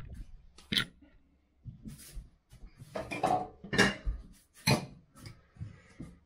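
Kitchen dishes and pots clattering at a steel sink: several separate knocks and clinks.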